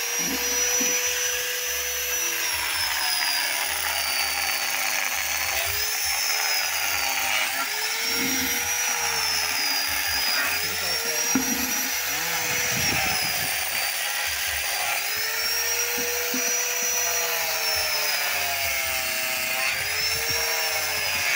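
Electric angle grinder with a sanding disc running continuously while sanding bare wood. Its whine repeatedly dips in pitch and recovers as the disc is pressed into the wood and eased off.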